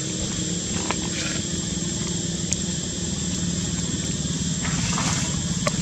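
An engine running steadily off-camera, a low rumble that grows slightly louder near the end, with a thin steady high-pitched tone above it and a few faint clicks.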